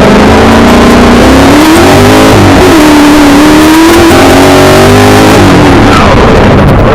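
Milner R5 racing car's 5-litre V8 heard from inside the cabin, revving hard under acceleration: the pitch climbs, dips at a gear change about two and a half seconds in, holds, then drops off about five seconds in before climbing again near the end. A heavy rushing noise runs under the engine throughout.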